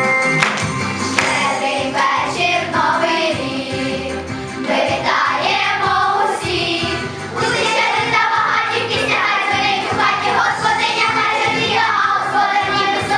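A group of children singing a song together with instrumental accompaniment.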